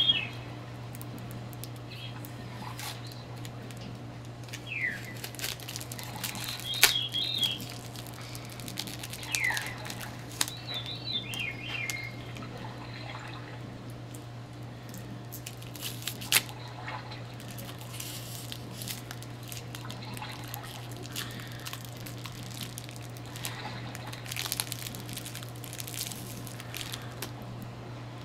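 Clear cellophane wrapping crinkling and crackling in the hands as a wrapped item is pulled open, in scattered crackles that grow busier in the second half. A few high, warbling chirps sound in the first half, over a steady low hum.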